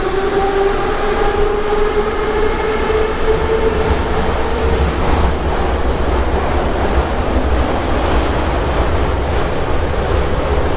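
Metro train running, heard from inside the passenger car. A whine rises slowly in pitch for the first few seconds as the train gathers speed, then gives way to a steady rumble of the wheels on the rails.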